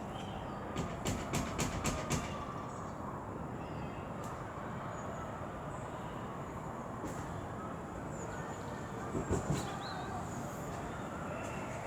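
West Midlands Railway Class 730 electric multiple unit pulling into the station with a steady low rumble. A quick run of about six clicks comes about a second in, and a few more knocks about nine seconds in.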